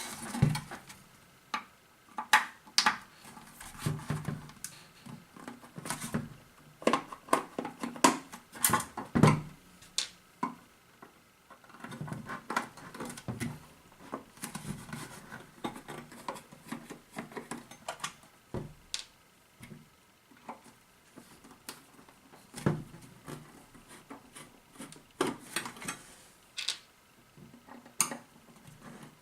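Plastic and metal parts of an LED disco dome light being handled and taken apart by hand: irregular clicks, knocks and short scrapes, some louder knocks about 2, 9 and 28 seconds in.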